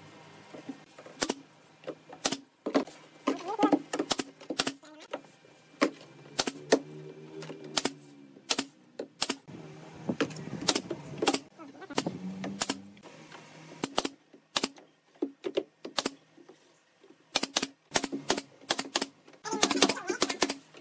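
Pneumatic nail gun driving brads into thin wooden strips: sharp snaps at irregular intervals, with a quick run of shots near the end.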